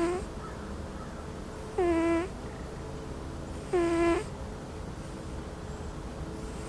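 A napping cat's whistling snore: a short, high squeaky note on each breath, three times about two seconds apart.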